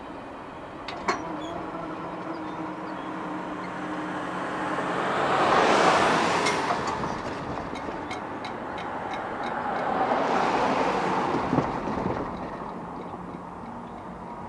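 Cars driving across a railroad grade crossing one after another: tyre and engine noise swells and fades twice, peaking about six and ten seconds in, with a run of light ticks as the first car passes.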